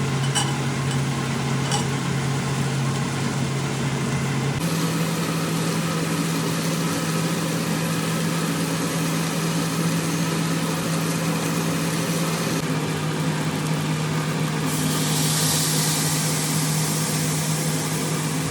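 A steady low mechanical hum, like a motor or fan, with a hiss joining it in the last few seconds. The hum shifts slightly in pitch and tone at abrupt changes.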